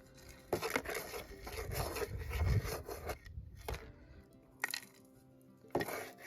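Rasping scrapes of a digging tool working stony ground, a long spell of scraping and knocking about half a second in, then several short scrapes, over faint steady tones.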